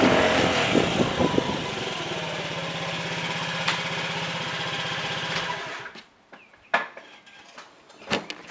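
Motor scooter's small engine running as the scooter slows, then idling with an even low pulse, then switched off about six seconds in. A few faint clicks follow.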